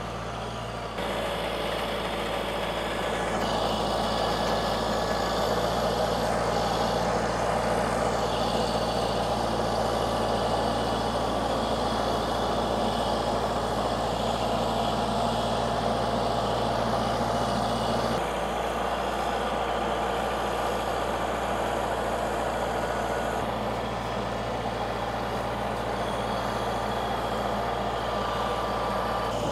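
Engine of heavy machinery running steadily at a low, even pitch, its tone shifting abruptly a few times.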